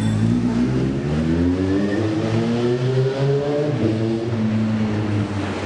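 Car engine revving, its pitch rising over the first three seconds or so and then holding steady.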